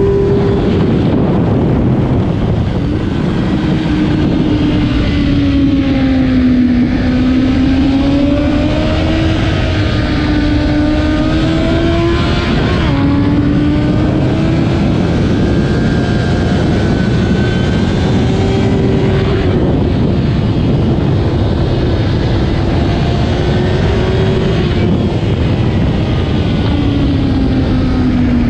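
Stock 2008 Kawasaki ZX-10R's inline-four engine at full race pace, heard onboard: its note climbs and falls with throttle and gear changes, with a clear upshift drop about halfway through, over loud wind rush.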